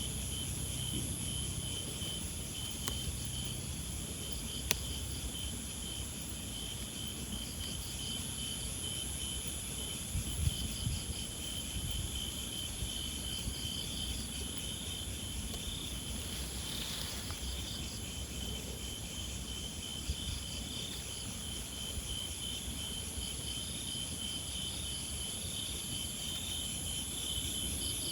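Steady outdoor insect chorus: a continuous high-pitched trill with a lower, rapidly pulsing chirp beneath it. There is a sharp click near the start and a brief low rustle about a third of the way in.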